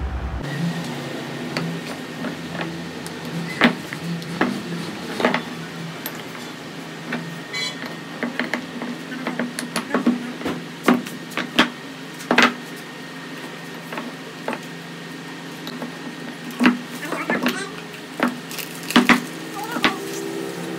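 Metal engine parts and hand tools clinking and knocking at irregular intervals during an engine rebuild, over a steady low hum.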